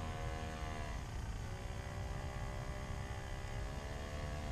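A motor running steadily with a droning hum; its pitch dips about a second in and then settles slightly lower.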